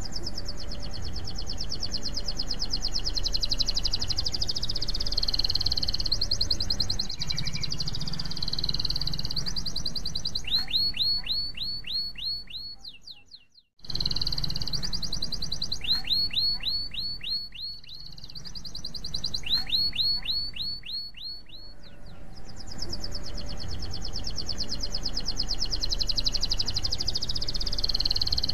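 Domestic canary singing: long, very fast high trills, with runs of quick downward-sweeping notes, about four a second, in the middle of the song. The song breaks off briefly about halfway, then goes on.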